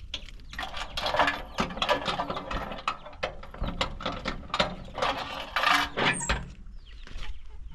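A door being shut and fastened: a run of metallic clicks and rattles from the latch and lock, which die down about six and a half seconds in.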